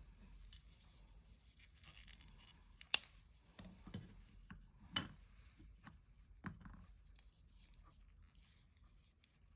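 Plastic model kit parts being handled and pulled apart: faint rubbing and scraping of plastic, with a few sharp clicks as pieces come unsnapped, the loudest about three and five seconds in.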